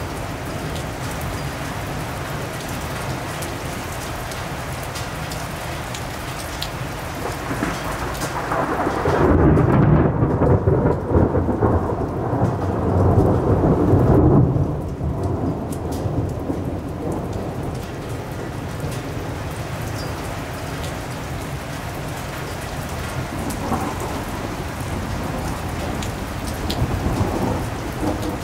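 Steady rain with thunder. A long rolling rumble builds about eight seconds in, peaks twice and fades over about seven seconds, and another rumble starts near the end.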